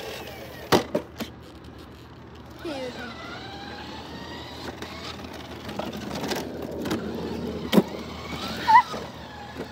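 Razor Crazy Cart electric drift kart driving on concrete: its motor whines up and down in pitch as it speeds up and turns, over the rolling noise of its small wheels. There are a few sharp knocks, about a second in and again near the end.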